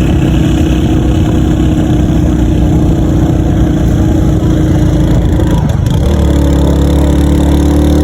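Motorcycle engine running steadily; about six seconds in its pitch drops and the low rumble grows stronger.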